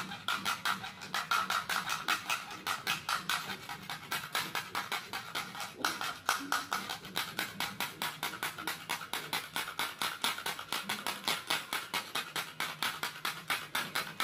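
Wind-up plastic toy horses walking on a concrete floor: the clockwork mechanism whirs and clicks evenly, about four or five clicks a second.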